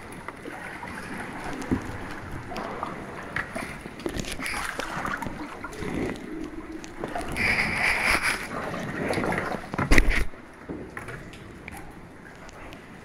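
Kayak paddle strokes, with water sloshing and gurgling around the plastic kayak and short drips and clicks throughout. About ten seconds in there is a single loud knock.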